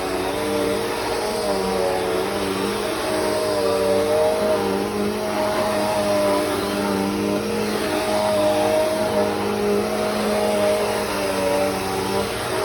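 Bissell CleanView 3536 upright vacuum cleaner running steadily while vacuuming, its motor hum wavering slightly in pitch over a constant rush of air.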